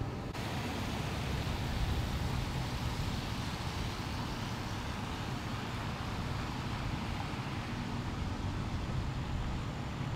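Steady outdoor background noise: a continuous low rumble with hiss and no distinct events, of the traffic-like kind; a brighter hiss sets in just after the start.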